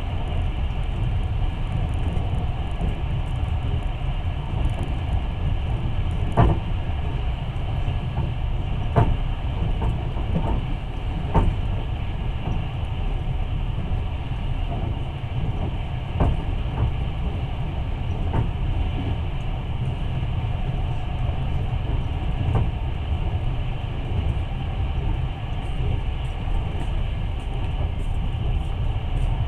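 Long-distance passenger train running along the track: a steady low rumble with sharp clacks now and then, about seven of them at irregular intervals.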